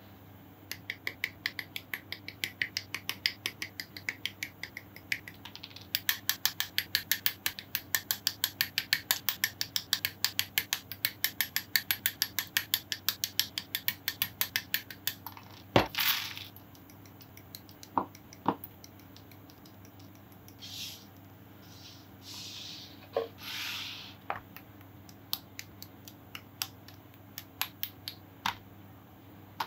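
Small hard-plastic model kit parts clicking in a fast, even run of about four to five clicks a second, pausing briefly about five seconds in and stopping about fifteen seconds in. Then one sharp, louder click, followed by scattered single clicks and a few short rustles of parts being handled.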